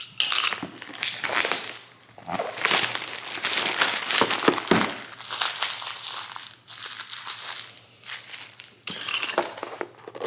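Paper packaging crinkling and rustling in irregular bursts as a cardboard box is opened by hand and its contents lifted out.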